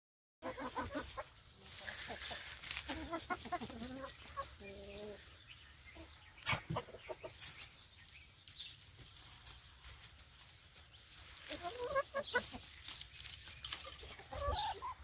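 Laying hens clucking as they feed, in bunches of calls near the start and again near the end, with scattered sharp clicks of pecking and rustling among the straw and wheat ears.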